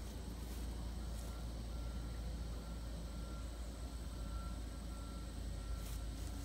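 Wind rumble on the microphone of a handheld camera. From about a second in, a faint high beep repeats about twice a second, in the manner of a distant reversing alarm. A rustling step in grass comes near the end.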